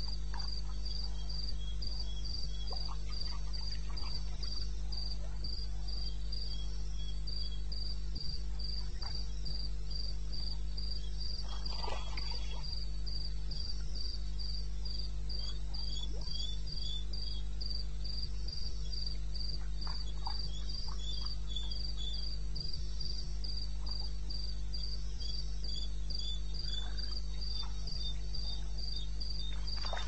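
Crickets calling: one sings a steady run of rapid, evenly spaced high-pitched chirps, while a second, slightly lower chirp comes in short groups, over a low steady hum.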